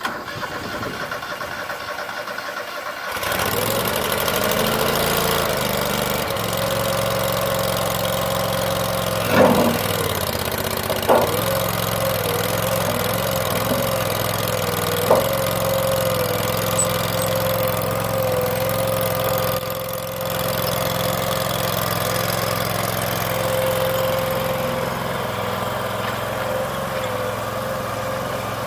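Power House Prowler stand-on tracked mini skid steer's engine cranking for about three seconds, then catching and running steadily. A few short sharp knocks come in the middle.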